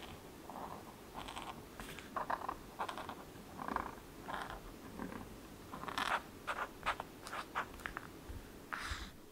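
Brush-pen tip scratching across paper in a series of short strokes as swatches and squiggles are drawn, with a quicker run of sharper ticks about six seconds in.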